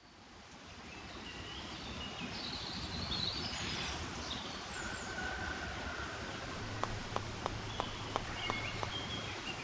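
Countryside ambience with birds chirping over a steady hiss, fading in over the first couple of seconds. About seven seconds in a low hum joins, and a run of about seven light ticks follows, roughly three a second.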